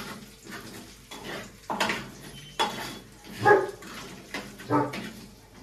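Metal spatula knocking and scraping against a frying pan and a steel plate as pieces of fried fish are lifted out, with four or five short sharp clinks.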